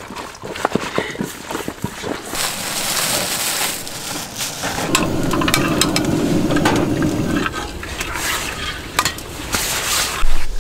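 Water running from a camping water tank's spigot and splashing over minari being rinsed. A gas torch lighter then hisses steadily for a couple of seconds as a fire is lit in a small steel stove, with clicks and clinks of cookware around it.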